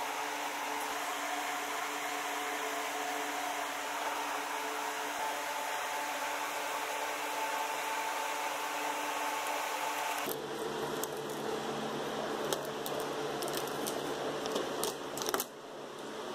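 Steady whirring hiss of a fan or blower running. About ten seconds in, the background changes abruptly and a run of sharp crackles and clicks follows, from the paper transfer tape being peeled and handled over a vinyl decal.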